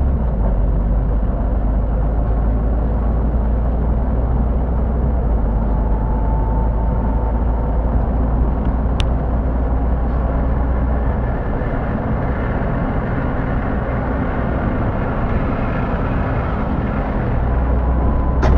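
City bus driving, heard from inside the passenger cabin: steady engine and road rumble. About eleven seconds in the deep rumble eases and a faint whine rises in pitch, with a single sharp click just before that.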